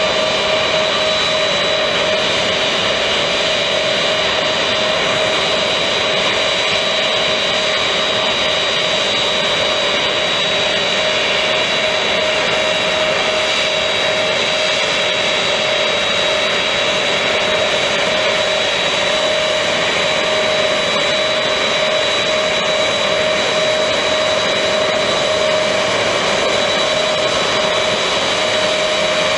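Lockheed C-5 Galaxy's four turbofan engines running steadily while the aircraft taxis: an even jet roar with two steady whining tones, one middling and one high.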